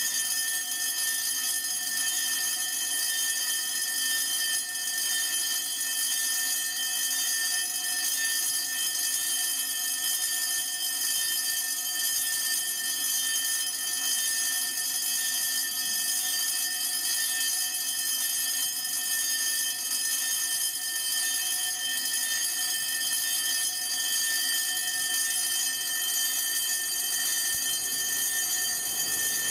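Six electric level-crossing bells (Wecker) ringing at once in a continuous, overlapping jangle that does not let up. The two extra bells, switched on with the "2 Züge" indicator, signal that a second train is approaching the crossing.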